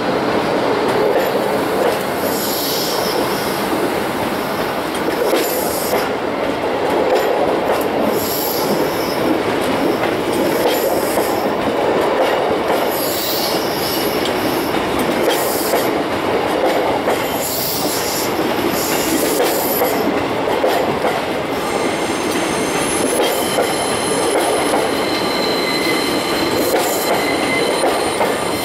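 A train running on the rails, a steady loud rumble with a short hiss every two or three seconds. From about twenty seconds in, thin high-pitched wheel squeal sounds over it.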